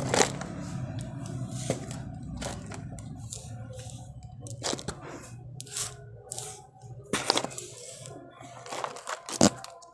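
Hands working crumbly cocopeat and vermicompost potting mix and handling thin clear plastic trays and cups: scattered crackles, crinkles and soft crunches. The loudest come just after the start and about nine and a half seconds in.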